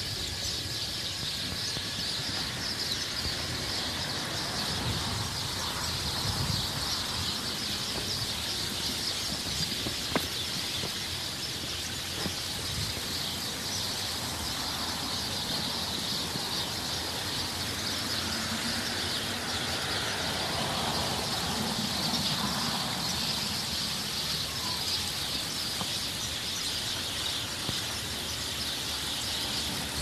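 A flock of birds chirping together in a tree: a dense, steady chatter of many overlapping high calls.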